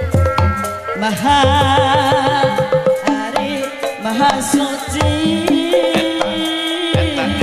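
Live Sundanese jaipongan gamelan music. Hand drums beat quick, irregular low strokes under ringing gong-chime and metallophone tones, and a high wavering melody line is held over the top.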